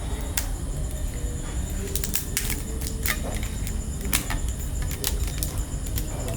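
Scattered sharp clicks and clinks, irregular and in a quick cluster about two seconds in, over a steady low rumble, with a thin high steady tone.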